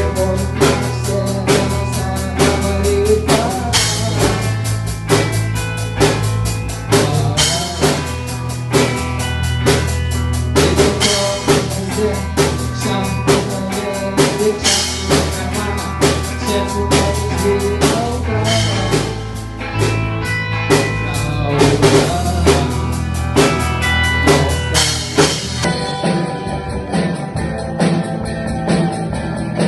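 Instrumental rock music: a drum kit keeps a steady driving beat, with bass drum and snare, over a bass line and other instruments. There are no vocals.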